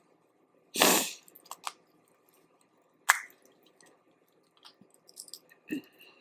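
Wet eating sounds of peeling and eating boiled crawfish: a short noisy rush about a second in, a sharp crack around three seconds, then small wet clicks and squishes.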